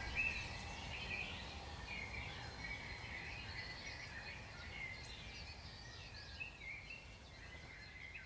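Small birds chirping and twittering in a continuous quiet chorus of short, quick calls, over a low steady outdoor background rumble.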